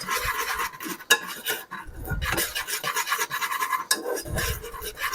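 A utensil scraping and stirring against the bottom of a pan in rapid, continuous strokes as flour is worked into melted butter and garlic to make a roux.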